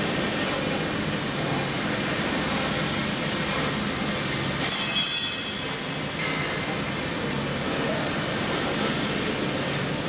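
CNC router spindle running, its end mill cutting through styrofoam: a steady machine noise with a low hum, and a brief high-pitched whine about halfway through.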